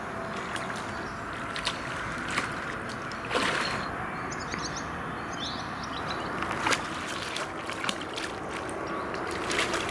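A hooked carp being played in to the landing net, water splashing and sloshing at the surface, over a steady background hiss with a few sharp clicks scattered through. A brief run of faint high chirps sounds about four seconds in.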